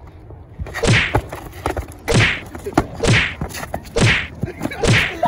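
Pillow fight: pillows swung hard and striking, five swishing whacks about a second apart.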